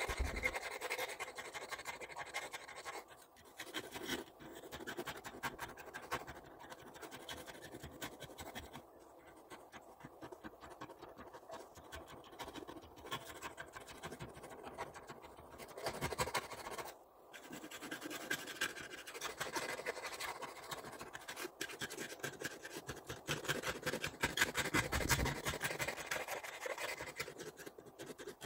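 Hand scratching and scrubbing on a grinder part, a long run of quick, uneven scratchy strokes with brief pauses about 3 and 17 seconds in.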